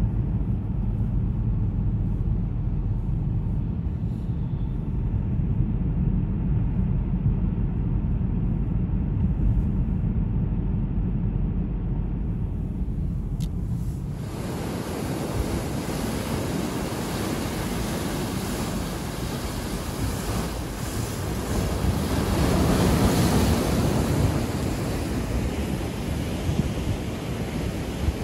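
Low road and engine rumble heard from inside a moving car. About halfway through it cuts to surf breaking and washing over a breakwater of concrete tetrapods, with wind buffeting the microphone, and it swells louder later on as a bigger wave comes in.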